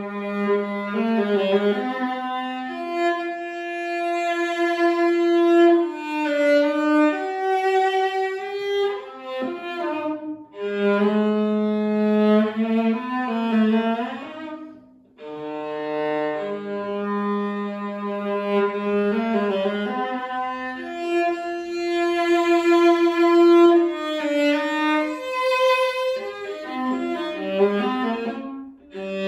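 Solo large-format viola, about 43 cm long, bowed: a melody of long held notes, with short breaks between phrases about ten seconds in and again about halfway through.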